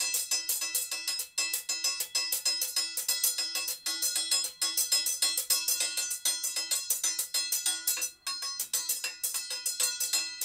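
Steel chimta, a long tong-shaped percussion instrument with jingles, played in a fast rhythmic run: rapid metallic clangs and jingling, with a ringing tone carrying between strokes.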